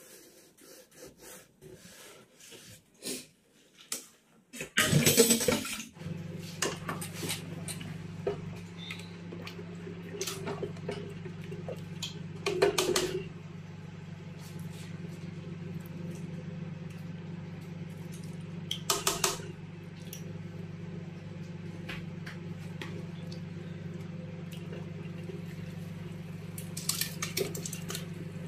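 Kitchen handling sounds: a ladle stirring and knocking in an aluminium pressure-cooker pot of stew, with a few louder clatters, and meat pieces tipped in from a plastic tub near the end. A steady low hum runs underneath from about six seconds in.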